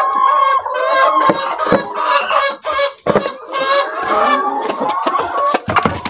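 A hen clucking and squawking over and over, disturbed in her nest box as a hand reaches in among the eggs, with a few sharp knocks in between.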